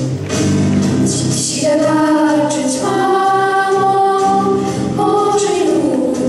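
A group of girls singing together into microphones over instrumental accompaniment. The voices come in about a second and a half in, with long held notes.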